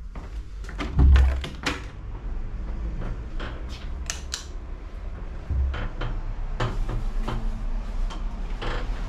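A bathroom door with a round knob being opened: sharp clicks and knocks from the knob and latch, with a heavy low thump about a second in and another a little past the middle.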